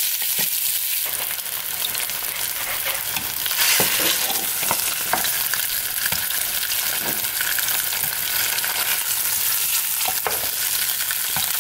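Marinated beef chuck ribs sizzling steadily in hot oil as they brown in a square pan, with scattered light clicks of metal tongs moving and turning them.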